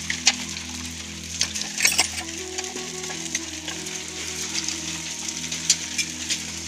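Hail falling: a steady hiss with many sharp, irregular clicks of hailstones striking.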